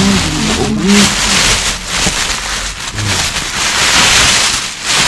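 Plastic bin bags and packaging rustling and crinkling in irregular surges as rubbish in a dumpster is rummaged through by hand.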